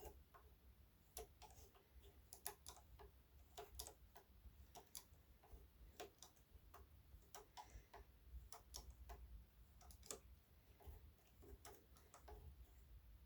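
Faint, irregular clicks and light taps of plastic Lego pieces being handled, often two in quick succession, over a low handling rumble.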